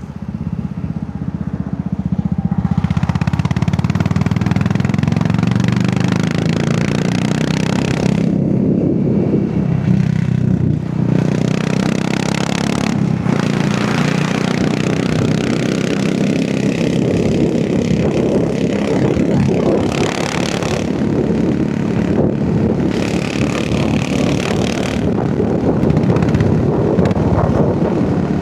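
Royal Enfield Hunter 350's single-cylinder engine and exhaust while the motorcycle is ridden, picking up over the first few seconds and then running on, with wind and road noise swelling and easing in stretches.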